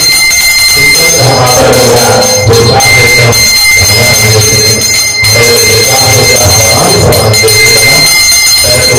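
A brass puja handbell rung continuously, heard as a steady high ringing tone, under voices chanting.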